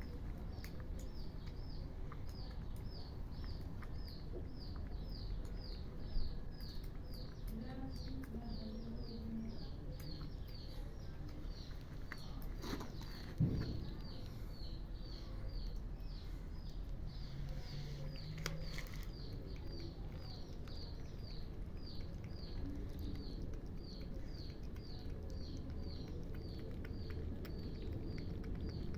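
A high, thin chirp repeated steadily about three times a second, each call sliding slightly downward. Two sharp knocks stand out, about six seconds in and again near thirteen seconds.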